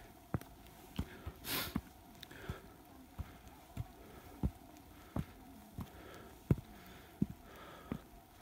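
Footsteps of a hiker climbing an earthen trail with log steps: a steady walking rhythm of dull thuds, about three every two seconds, with a short hiss about one and a half seconds in.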